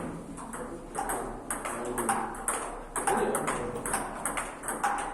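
Table tennis ball clicking against paddles and the table during play, several sharp hits a second at an uneven pace.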